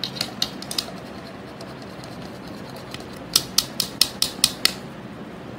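Metal mesh sieve being tapped and shaken over a plastic bowl to sift flour: a few light taps near the start, then a quick run of about seven sharp taps, some five a second, a little past the middle.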